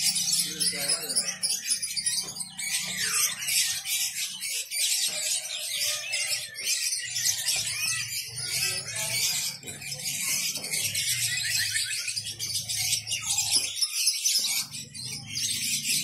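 Many caged songbirds chirping, trilling and singing at once in a dense, continuous high-pitched chorus, over a low background murmur.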